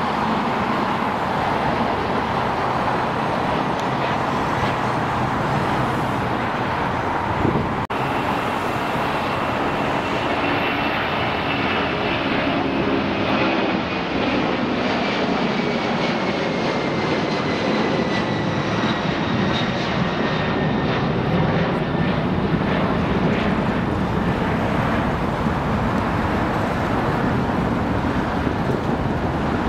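Jet airliners climbing out after takeoff: a steady jet engine roar, broken by a brief dropout about eight seconds in. After it, a Boeing 767 freighter at takeoff power, its engine whine falling slowly in pitch as it passes and climbs away.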